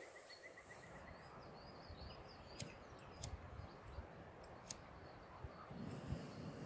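Canister camping gas stove being lit: a few sharp separate clicks, then a low steady rushing of the burner flame setting in near the end. A bird trills faintly in the first couple of seconds.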